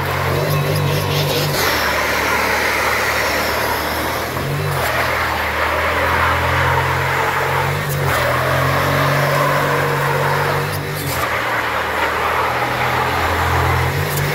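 Jeep Grand Cherokee's V8 held at high revs while the car rocks hard back and forth between drive and reverse, tyres spinning on loose dirt. The revs drop and jump again about every three seconds as it changes direction.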